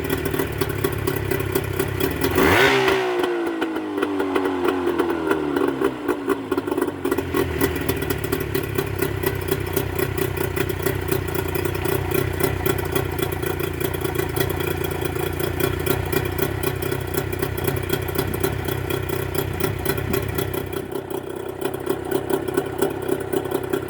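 Mercury 25 hp two-stroke outboard, just fitted with Boyesen power reeds, running in neutral on a test run. About two and a half seconds in it is revved sharply and its pitch falls away over the next few seconds, then it settles to a steady run.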